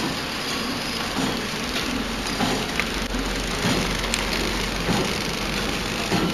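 Landpack KT-350D horizontal pillow-pack flow-wrapping machine running, a steady mechanical whir from its conveyor and film-wrapping section with light, irregular clicks. A low hum joins about two seconds in.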